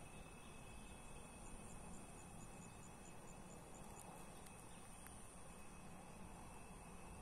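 Near silence with faint insect sounds: a thin steady high whine, and starting about a second and a half in, a short run of rapid high chirps, about five a second, lasting a little over two seconds.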